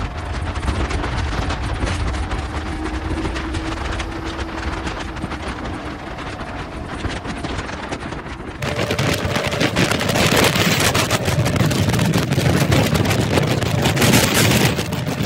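Wind rushing over the microphone of a moving motorcycle, with the engine's steady hum underneath. About two-thirds of the way through, the sound jumps abruptly louder and hissier.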